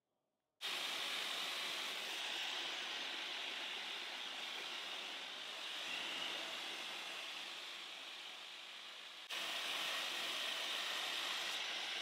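Muttus M12X Pro hair dryer running steadily, blowing a rushing hiss of air while drying hair over a round brush. It starts abruptly about half a second in and gets slightly louder a little after nine seconds in.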